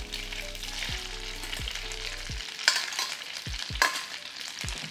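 Pancetta fat sizzling in a pan as drained spaghetti is dropped in and moved about, with a steady frying hiss and a few sharp clicks, the clearest two near the middle and end.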